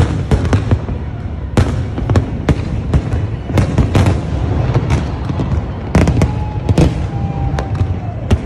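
Fireworks display heard close up: rapid, irregular bangs and crackles from bursting aerial shells and rising comets over a continuous low rumble.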